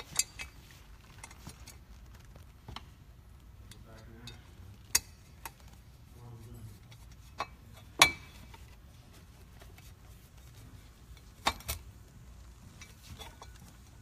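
Scattered metal clinks and knocks as the dust pipe support is fitted back onto a B2 edger floor sander, the sharpest knock about eight seconds in.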